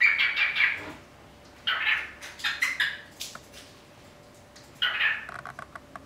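Cockatiel chattering: three bursts of chirps and squeaky chatter, the later ones broken up by quick clicks.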